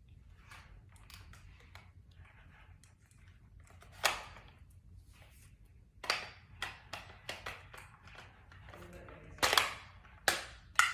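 Airsoft Thompson submachine gun being reloaded: light plastic clicks and rattles, a sharp click about four seconds in, then a cluster of clicks and three louder snaps near the end.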